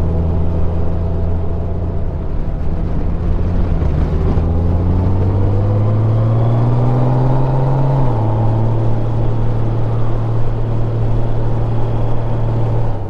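2021 Honda Gold Wing's flat-six engine running under way. Its pitch rises as it accelerates for a few seconds, then drops suddenly about eight seconds in at an upshift and holds steady.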